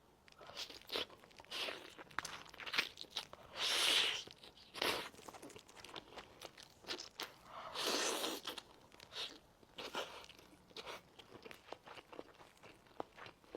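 Close-miked crunching and crinkling with many small clicks, and two longer, louder rustling passes about four and eight seconds in.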